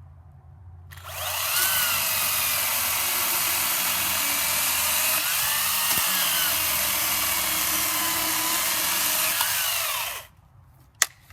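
Makita XCU06 18-volt battery top-handle chainsaw with a 1/4-inch pitch chain cutting through a piece of hickory. The motor's whine wavers under load and cuts off suddenly after about nine seconds, followed by a single sharp click.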